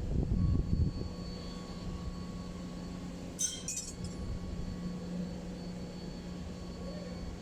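Steady background hum with low knocks in the first second, then two quick metallic clinks about three and a half seconds in: metal hand tools or parts being handled during mechanical work.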